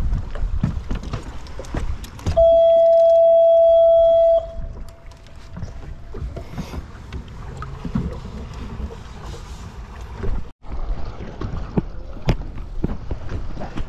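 A horn sounds once, a steady high tone held for about two seconds, the loudest thing here. Around it are low rumbling and scattered knocks.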